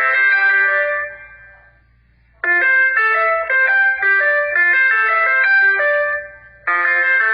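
Alcatel U5 phone ringtones playing: an electronic melody of clear bell-like notes fades out about a second in, a brief pause follows, then a ringtone tune starts abruptly about two and a half seconds in and begins again just before the end.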